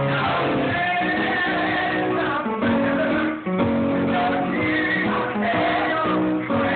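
Show tune from a live musical performance: male voices singing over a guitar-led band accompaniment, recorded through a phone's microphone so it sounds dull and cut off in the treble.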